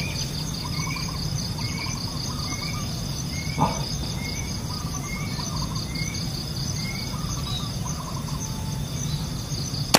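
Steady chorus of insects buzzing high, with a short chirp repeating about every two-thirds of a second. A single sharp snap comes right at the end.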